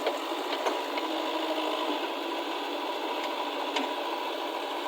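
Diesel engine running steadily, with a few light knocks and rattles.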